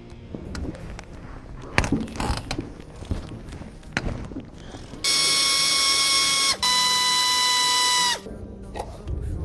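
A handheld electric power tool, such as a cordless ratchet or driver, runs in two high-pitched whirring bursts of about a second and a half, its pitch sagging as each one stops. They come after several light metallic clicks and knocks of tools on engine parts during disassembly.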